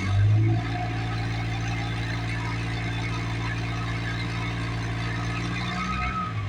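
Cummins 24-valve inline-six diesel idling steadily, with a brief louder surge right at the start.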